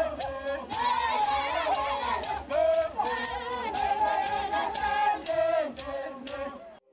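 A group of dancers chanting and singing together, several voices moving up and down in pitch, over sharp rhythmic clicks about two or three a second. It cuts off suddenly near the end.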